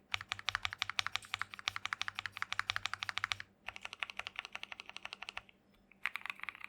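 Fast typing on a modded Keychron Q1 mechanical keyboard with Gateron Milky Yellow Pro linear switches: a rapid run of keystrokes, broken by two short pauses about three and a half and five and a half seconds in.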